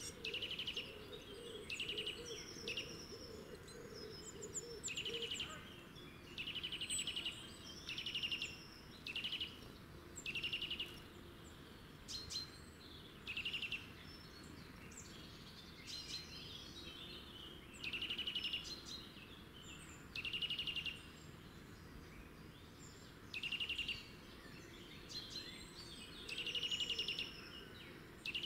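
Songbirds singing: short trilled phrases repeated every second or two, with thin high notes in between, over a faint steady outdoor background.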